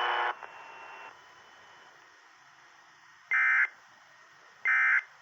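Emergency Alert System end-of-message signal: two short, identical bursts of digital data tones about 1.3 seconds apart, starting about three seconds in, marking the end of the flood warning alert. Just after the start, a steady buzzing tone cuts off.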